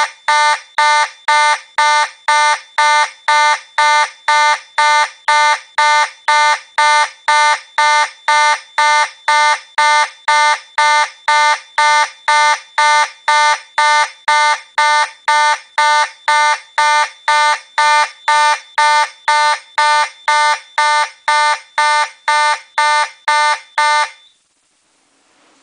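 Simplex 2901-9806 fire alarm horn sounding in march time: short, evenly spaced horn blasts, about two a second, then it cuts off suddenly near the end.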